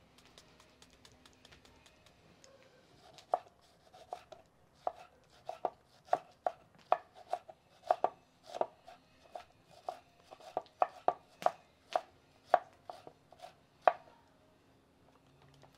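Kitchen knife dicing an onion on a wooden cutting board: a run of sharp knocks, about two or three a second, starting about three seconds in and stopping shortly before the end.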